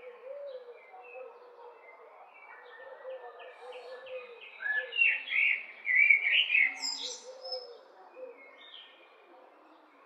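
Several small birds chirping and trilling, busiest and loudest about five to seven seconds in, over a lower wavering call that keeps repeating underneath.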